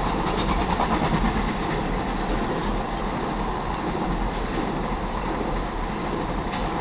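Freight train of empty crude-oil tank cars rolling past: steady wheel-on-rail noise with a light clatter, easing slightly near the end.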